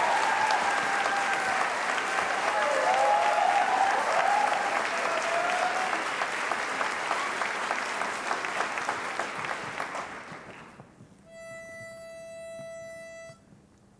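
Audience applause with a few high cheers, dying away about ten seconds in. Then a pitch pipe sounds one steady note for about two seconds, giving the barbershop quartet its starting pitch for the next song.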